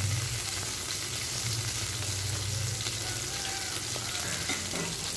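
Whole spices (cinnamon, cardamom, star anise, fennel and cumin seeds) sizzling in hot coconut oil in a pan: a steady frying hiss over a low hum.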